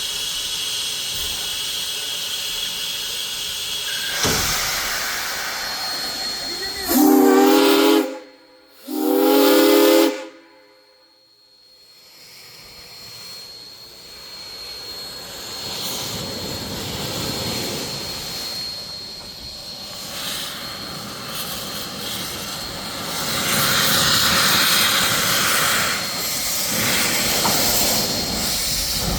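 Steam hissing from 2-8-0 steam locomotive #18, broken by two short blasts of its multi-tone steam whistle about seven and nine seconds in: two short blasts are the usual signal that the train is about to proceed. After a brief lull the steam noise slowly builds again.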